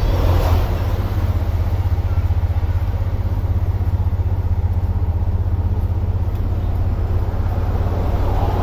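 Tuk-tuk's small single-cylinder engine running steadily with a rapid low putter, heard from inside the moving auto-rickshaw.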